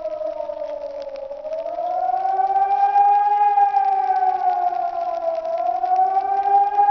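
Hörmann ECN 2400 electronic civil-defence siren sounding the 'Warnung' test signal: a chord of several tones wailing slowly up and down, dipping about every four seconds. It swells louder over the first few seconds as it gets going.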